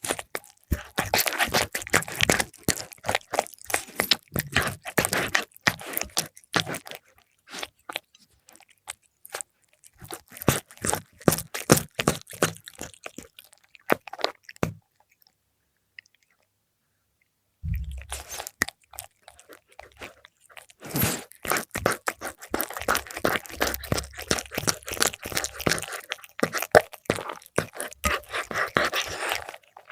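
A cat chewing and crunching fried milkfish close up, in rapid runs of crisp crunches. The chewing breaks off for about three seconds just past the middle, then starts again.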